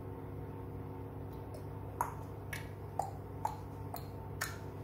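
A few light clicks and taps from handling a small ceramic cup and paintbrush, some with a brief ring, over a steady low hum.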